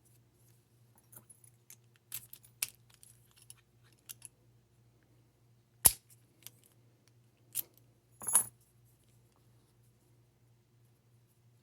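Master Lock Pro Series 6125 padlock being worked with its key: light metal clicks and jingles, then a sharp click about six seconds in, another about a second and a half later, and a short rattling clack just after. A faint low hum runs underneath.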